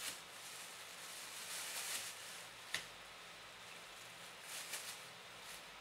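Thin plastic bag crinkling faintly as a kitten moves inside it, in a few short bursts, with one sharp tick about halfway through.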